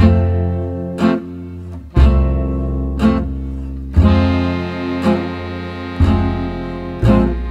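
Background music: a strummed acoustic guitar, about one strum a second over sustained bass notes that change every two seconds.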